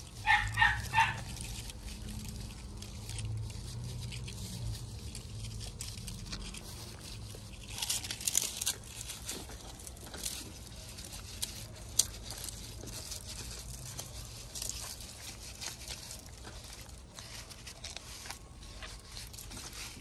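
Dry amaranth seed heads rustling and crackling as they are rubbed and crunched up by gloved hands, in scattered soft bursts. Right at the start, four quick high calls from an animal.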